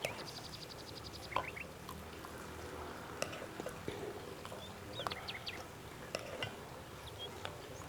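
Hot water being poured into a glass holding crushed garlic and rock sugar, brewing a home cough remedy; faint, with a few light clicks and short high chirps.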